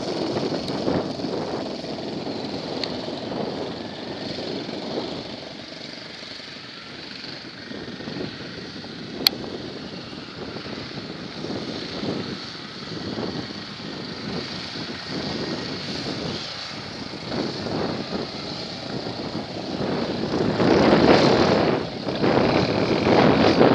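Off-road vehicle engine running, rising in loudness over the last few seconds, with a single sharp click about nine seconds in.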